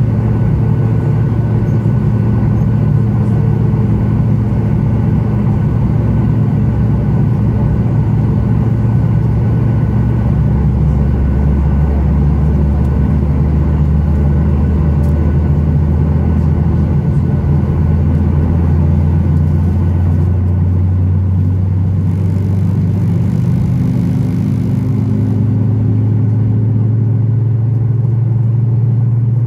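Cabin hum of a Boeing 737 MAX 8 taxiing, its CFM LEAP-1B engines at idle: a steady low drone with a few held tones. The tones rise slightly in pitch about three-quarters of the way through.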